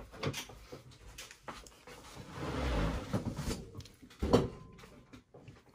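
Faint handling and movement noises in a small room: a rustle swells and fades about two to three and a half seconds in, then a single short knock a little after four seconds.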